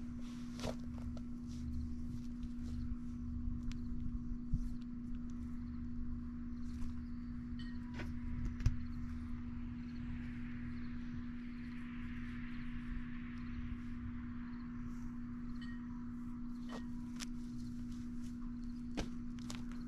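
Wind rumbling on the microphone, with a steady low hum throughout and scattered faint clicks.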